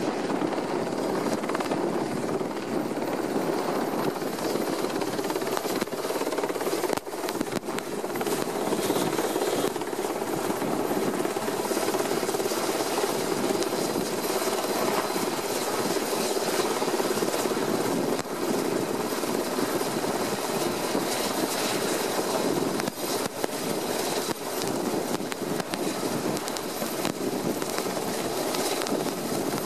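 Westland Sea King helicopter running steadily, its rotor and twin Rolls-Royce Gnome turboshaft engines heard as it flies and then hovers low. A faint high turbine whine sits over the rotor noise in the later part.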